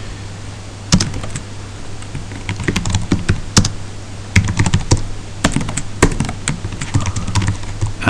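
Typing on a computer keyboard: irregular key clicks, sparse at first and coming in quicker runs from a few seconds in, over a low steady hum.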